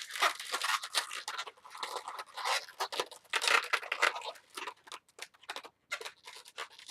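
Latex modelling balloons rubbing and twisting under the fingers as a small ear twist is made in a yellow 260 balloon: irregular scratchy, crinkling rubs coming in short bursts.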